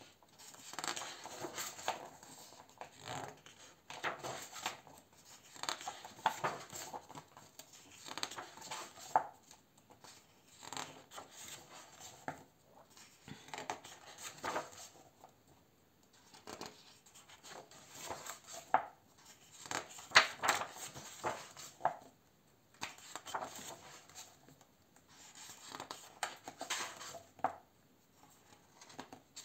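Paper pages of a paperback colouring book being turned one after another, a papery swish and rustle roughly every two seconds.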